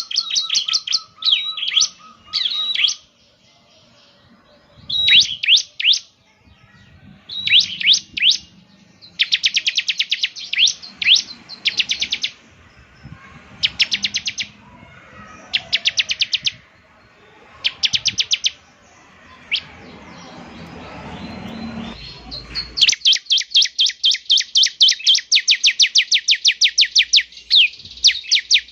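Bar-winged prinia (ciblek) singing, in bursts of rapid high-pitched chirping notes with short pauses between them. Near the end these give way to a long, unbroken run of fast chattering notes.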